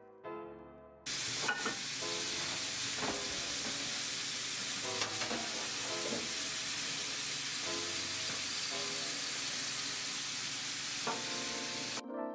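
Diced onions and green peppers sizzling in a hot metal frying pan, stirred, with a few scrapes of the spatula. The frying starts suddenly about a second in and cuts off near the end, with soft piano music underneath and alone at the start and end.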